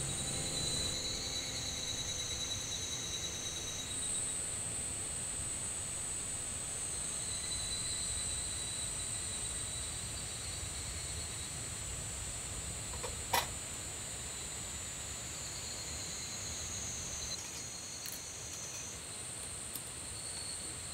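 Summer insects singing in a steady, high-pitched chorus of several overlapping tones, with one sharp tap about two-thirds of the way through.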